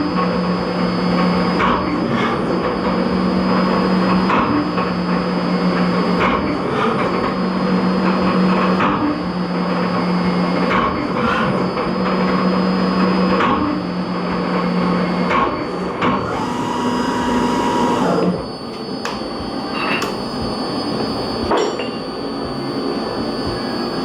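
CNC vertical milling machine running a Delrin machining job: a low tone comes in repeated pulses about a second and a half long, with sharp clicks between them and a steady high whine underneath. About eighteen seconds in, a higher tone sounds for a moment and the machine noise drops.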